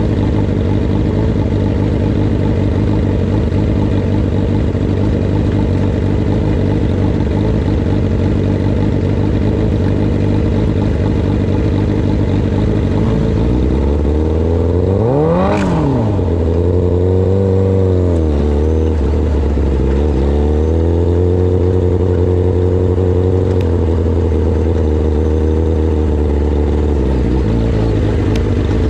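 Micro sprint car's 600cc motorcycle engine running steadily at low speed. About halfway through, one quick rev rises sharply and falls back, with a smaller dip a few seconds later, before it settles into steady running at a lower pitch.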